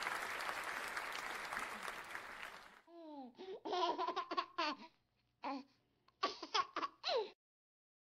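A steady noisy hiss fades out over the first three seconds. Then a high voice laughs and babbles in a run of short bursts, stopping about seven seconds in.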